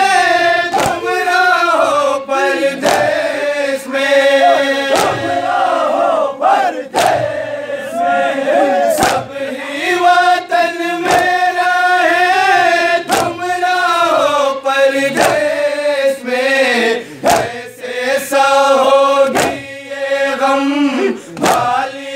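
Male voices singing a noha, an Urdu Shia lament, with matam chest-beating striking in a steady rhythm about once a second.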